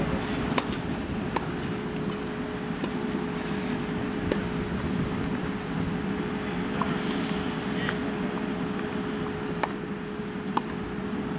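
Outdoor tennis-court ambience: a steady hum and low background murmur, with scattered sharp clicks. Near the end, a tennis ball struck hard by a racket on a serve, followed about a second later by another hit.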